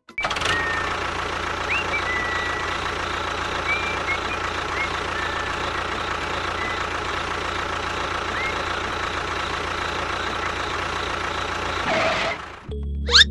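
A small motor or engine running steadily at an even pitch, with a few short, high chirps over it. It cuts off abruptly near the end.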